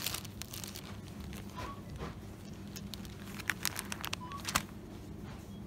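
Supermarket background: a steady low hum under light crinkling of plastic-wrapped goods being handled, with a cluster of sharp clicks a little past halfway and a few short faint beeps.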